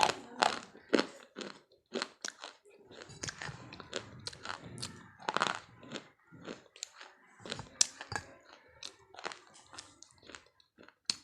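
Crunchy food being chewed: irregular crunches and crackles with short pauses between them.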